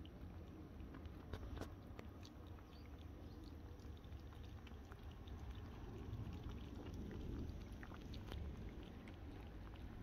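Several kittens lapping milk from a shallow dish: a quick, irregular patter of soft wet clicks, over a low steady rumble.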